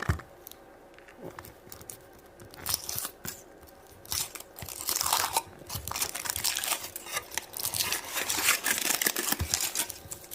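Foil wrapper of a large Kinder Surprise egg being torn open and crinkled. It starts as a few scattered crackles and becomes a dense, continuous crinkling about halfway through.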